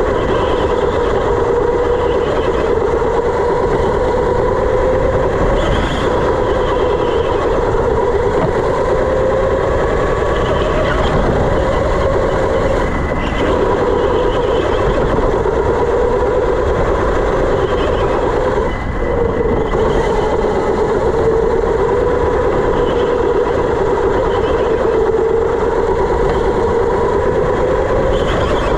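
Electric indoor go-kart at speed: the drive motor's whine rises and falls as the kart accelerates and slows through the turns, over a steady rumble from the tyres and chassis. The whine dips briefly about two-thirds of the way in.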